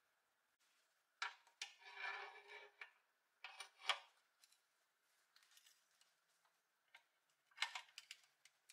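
Pressed-steel toy road grader parts handled and fitted together: a few metallic clinks and a brief scrape, a louder clink about four seconds in, then light ticks and another quick cluster of clinks near the end, as a tandem wheel assembly goes onto the frame's axle rod.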